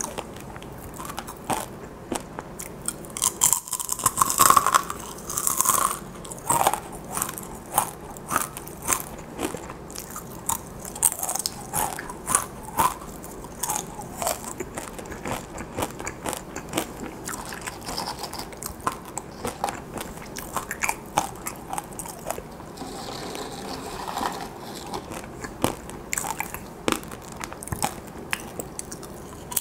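Close-miked crunching and chewing of fried, sugar-coated dried chili pepper chips (gochu-twigak): crisp bites and dense crackly chewing, the loudest crunches about four to six seconds in.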